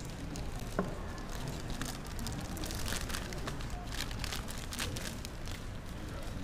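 Cellophane and plastic wrapping on offering baskets crinkling and rustling as they are handled, in short scattered bursts over a steady low room hum.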